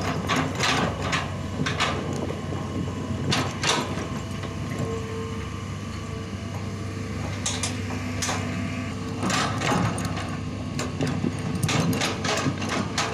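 Long-reach excavator's diesel engine running steadily under load while the bucket digs and drags soil, with repeated sharp knocks and clatters from the bucket and arm.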